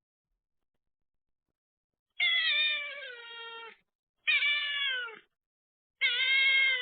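A cat meowing three times, starting about two seconds in: long, drawn-out meows, each sliding down a little in pitch, the first the longest.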